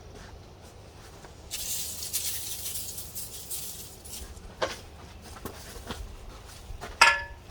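Dry granular fertilizer being scooped and poured, a rattling hiss of pellets for a couple of seconds. It is followed by a few light knocks and a sharp clink with a brief ring near the end.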